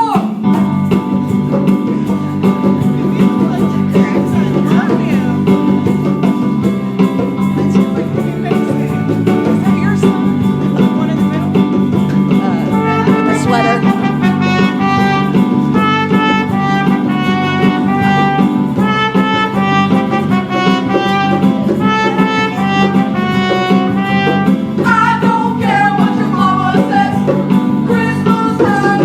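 A band playing a Christmas song. Steady, continuous music, with a melody of short held notes coming in on top about halfway through.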